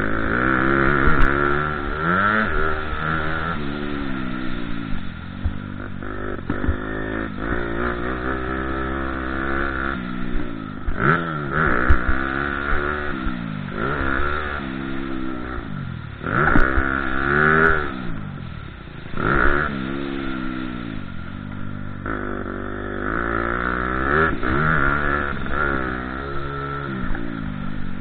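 Motocross dirt bike engine at full riding pace, its pitch climbing and dropping again and again as the throttle is opened and shut through the track's straights and corners, with a few sharp knocks from the bumps.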